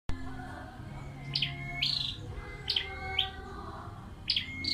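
Caged flowerpecker calling: a sharp note dropping to a short held tone, then a higher note, repeated three times about every second and a half. A low steady hum runs underneath.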